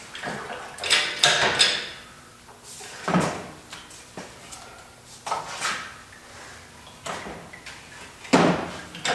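Metal parts and tools clanking and rattling in about five short, irregular bursts as a snowmobile engine is worked free for removal.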